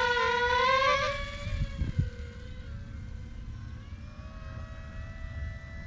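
The twin electric motors and propellers of a small RC P-51D Mustang plane whining at high throttle, the pitch creeping up, then fading sharply about a second in as the plane flies away, the whine wavering faintly after that. A thud about two seconds in, over a low wind rumble.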